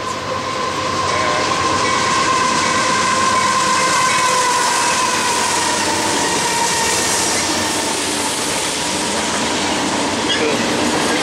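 BNSF diesel freight train passing at speed: two locomotives followed by double-stack container cars, a steady rumble and clatter of wheels on rail. Over the first six seconds a steady high tone sounds above the rumble and drifts slightly lower in pitch as the locomotives go by.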